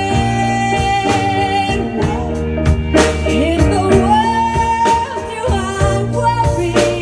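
Live band music with singing: long held melody notes over a steady bass and regular drum hits.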